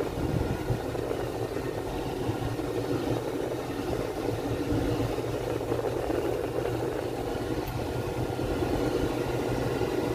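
Car engine and road noise heard from inside the cabin while driving, a steady drone with a faint hum; the car has just had its oil changed.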